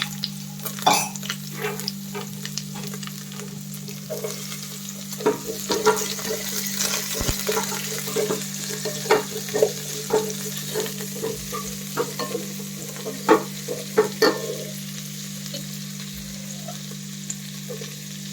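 Chopped onions sizzling in hot oil in a pan while a spatula stirs them, with frequent clicks and scrapes of the spatula against the pan over a steady low hum.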